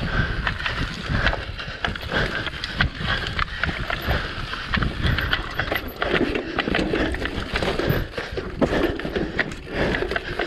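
Mountain bike descending a rough dirt trail at race speed: tyres rolling and scrubbing over dirt and roots, with the bike clattering over the bumps in many sharp knocks, first across wooden boardwalk slats.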